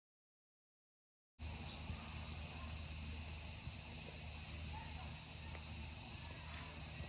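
Total silence for about the first second and a half, then a steady, high-pitched drone of cicadas in full chorus.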